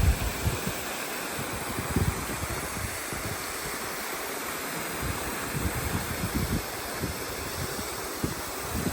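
Steady rush of water from a waterfall, with wind buffeting the microphone in low gusts.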